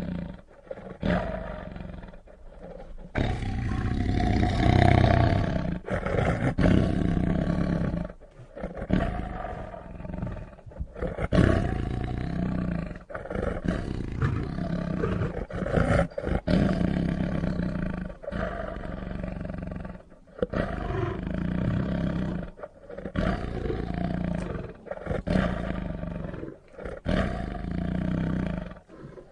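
Lion roaring over and over, each roar a second or two long with a pitch that rises and falls, separated by short breaks.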